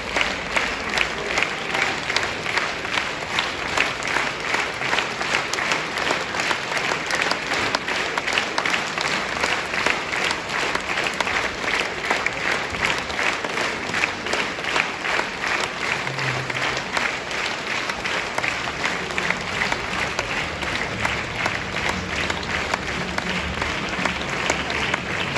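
Theatre audience applauding at a curtain call, a dense sustained clapping; in the first several seconds the claps fall into a regular beat.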